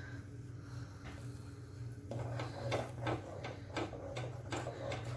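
A spoon or ladle knocking and scraping against a pan in quick, irregular strokes from about two seconds in, over a steady low hum.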